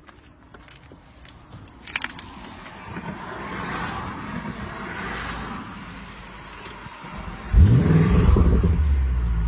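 Audi RS6 twin-turbo V8 starting up about seven and a half seconds in: it catches with a quick rising flare in revs, then settles into a loud, steady high idle. Before that, a single clunk and some quieter handling noise.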